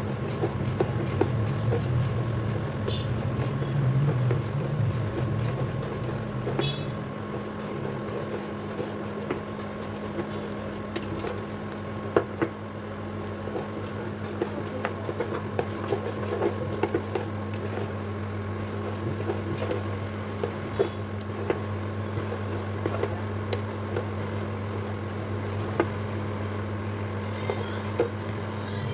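Steady low hum throughout, with scattered light clicks of a utensil against a pan.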